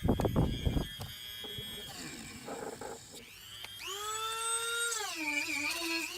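A few handling knocks, then a high-speed rotary cutting tool spins up about three seconds in. Its steady whine dips in pitch as it bites into the body-kit lip being trimmed, then picks back up.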